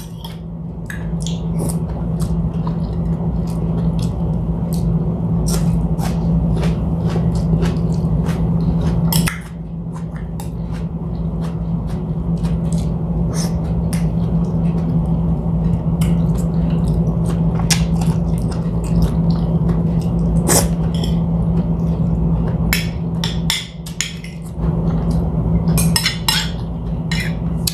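Eating at a table: chewing and small clicks and clinks of a spoon and fork against bowls and plates, over a steady low hum.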